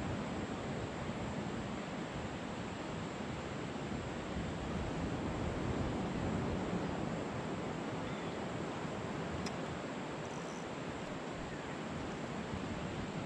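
Steady wash of ocean surf mixed with wind, an even rushing noise with no clear breaks.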